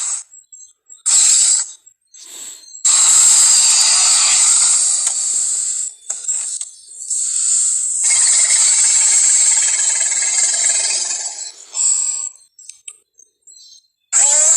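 Film monster sound effects of King Kong and a Tyrannosaurus rex: a few short harsh cries, then two long, raspy roars of several seconds each, a brief cry near the end and some faint clicks.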